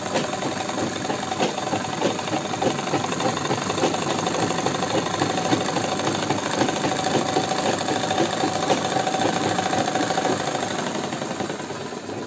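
Sewing machine running at a steady speed, stitching through cotton fabric: a fast, even clatter of the needle over a steady hum. It slows and stops near the end.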